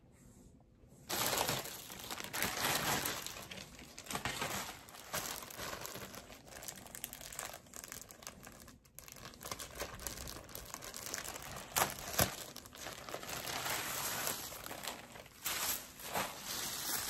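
Clear plastic poly bag being handled and pulled open by hand, crinkling and crackling irregularly, starting about a second in, with a couple of sharp crackles about twelve seconds in.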